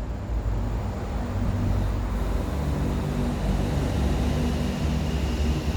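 Road traffic running over the bridge overhead: a steady low rumble with engine hum.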